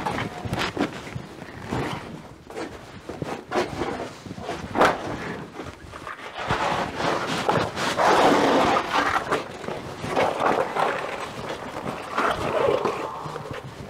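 Handling noise of raw rubber sheets being carried and draped over drying racks: scattered knocks and rustles, with a louder scraping, rustling stretch of about three seconds in the middle.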